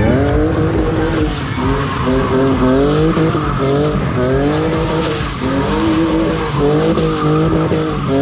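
Drift car engines revving hard, the pitch climbing and dropping again and again about once a second as the throttle is worked, over the steady hiss and squeal of tyres sliding sideways.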